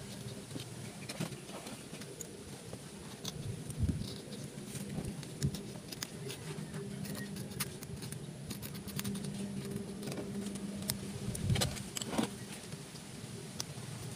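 Scattered small clicks, taps and scrapes of hands trimming and handling a coconut sprout in a plastic pot, with a few louder knocks. A low hum comes and goes underneath.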